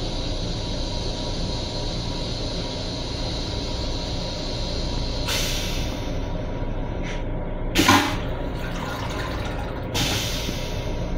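M7 railcar toilet flushing: a hiss of rinse water starts about halfway, a short loud whoosh comes about two-thirds through as the stainless steel bowl empties, and another hiss of rinse water follows near the end. The steady rumble of the moving train runs underneath.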